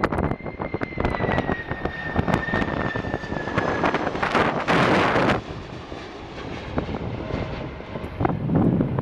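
Jet airliner's engine whine, sagging slightly in pitch over the first few seconds as the aircraft passes, with heavy wind buffeting the microphone. A loud rush of noise comes about four seconds in and lasts just over a second.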